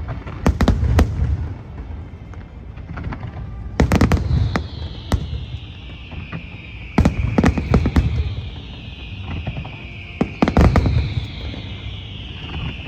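Aerial fireworks display: clusters of sharp bangs from bursting shells about every three seconds, each followed by a low rumbling echo. A high hiss, slowly falling in pitch, runs under the bangs from about four seconds in.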